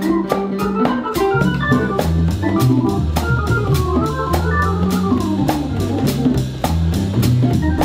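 Background music: a keyboard melody over a stepping bass line and a steady drum beat.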